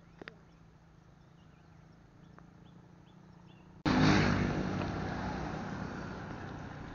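Quiet background with faint chirps and two sharp clicks near the start. About four seconds in, loud wind and road noise cuts in suddenly, with a motorbike engine passing close alongside, and fades over the next few seconds as the bike pulls away.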